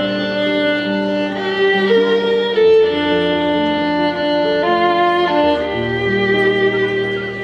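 Background music led by violin, with sustained notes over a low bass line.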